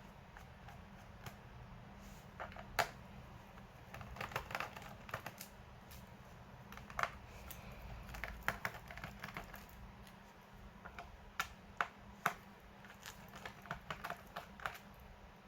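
Irregular light clicks and taps of hands working on an Acer V5-471P laptop's plastic case and parts while swapping its hard drive for an SSD. The clicks come in scattered clusters, with one sharper click about three seconds in.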